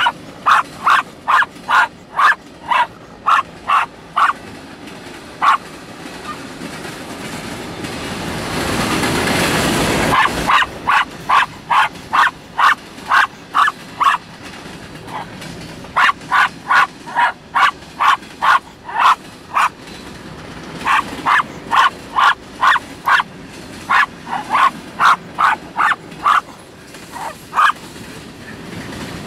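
A small dog barking at a passing freight train: runs of sharp, high yaps, two or three a second, with a break of several seconds partway, over the steady noise of the train rolling by. A rushing noise swells and cuts off suddenly about ten seconds in.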